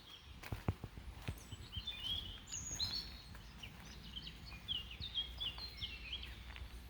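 A songbird singing in quick, bright chirping phrases from about two seconds in, over a low steady rumble, with a few sharp knocks near the start.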